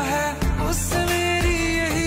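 Song with a singer's gliding melody over a steady beat and heavy bass.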